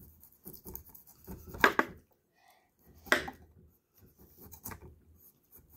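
Knife scraping and cutting the tough skin off a raw jicama, a series of short scraping strokes with two louder ones near the middle.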